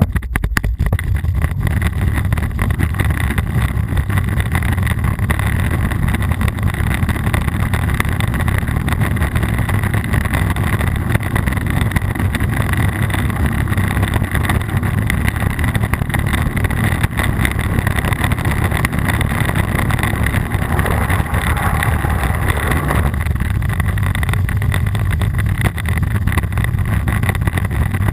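Wind buffeting an action camera's microphone during a fast downhill ride: a steady low rumble with continual rattling and clatter from the rough ground.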